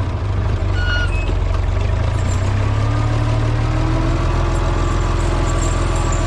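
International Harvester 460 tractor engine idling steadily, with a short high-pitched squeak about a second in.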